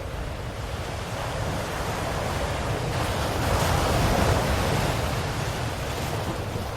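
Ocean waves: a wave washes in, building to a peak about four seconds in and then receding, over a steady low rumble of surf.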